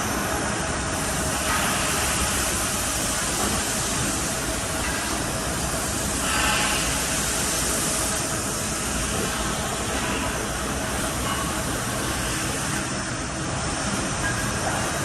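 Steady mechanical noise of CNC machining, with an even hiss and rumble and no clear rhythm.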